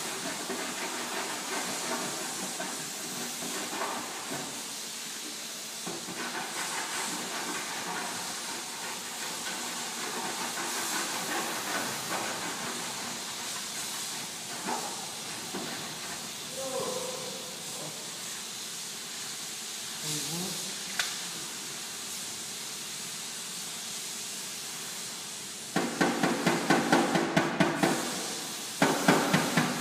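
A steady hiss fills most of the time. About 26 s in, a panel-beating hammer starts striking the dented front fender of a Volkswagen Golf in a quick, even run of taps on the sheet metal, with a short break near the end before the taps resume.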